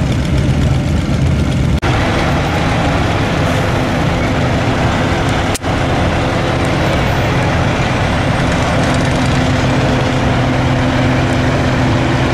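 Idling vehicle engines: motorcycles at first, then a semi truck's engine idling as a steady low drone. The sound drops out briefly twice, about two and five and a half seconds in.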